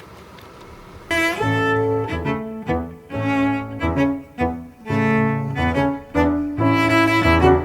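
Background music comes in about a second in, with sustained pitched notes that change every half second or so. Before it there is only a faint hiss.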